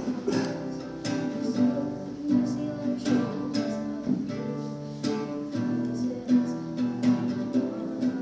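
Acoustic guitar and ukuleles strummed together in a steady rhythm, chords ringing between the strokes.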